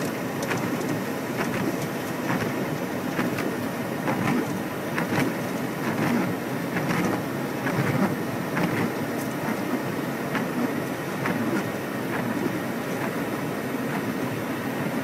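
Steady low rumble of wind and rain heard from inside a car, with scattered sharp taps of drops striking the vehicle.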